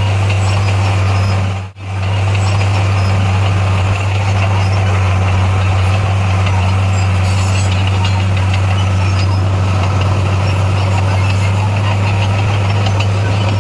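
Bulldozer diesel engine running with a steady, deep drone. The sound drops out briefly for a moment about two seconds in.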